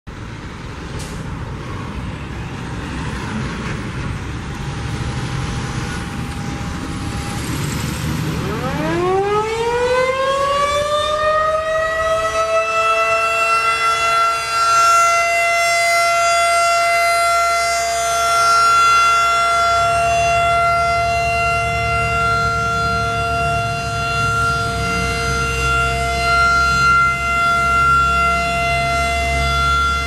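Federal Signal 2001-DC rotating outdoor warning siren sounding a test. About eight seconds in it winds up in a steeply rising wail, then holds a steady tone. Before that there is only a steady background noise.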